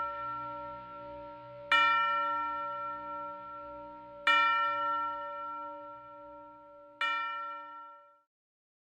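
A bell struck three times, about two and a half seconds apart, each stroke ringing out and slowly fading, over the dying ring of a stroke just before. The sound cuts off suddenly about eight seconds in.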